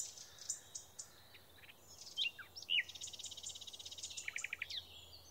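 Songbirds chirping and trilling: scattered high chirps, two louder swooping calls a little past two seconds in, then a fast, even trill for nearly two seconds.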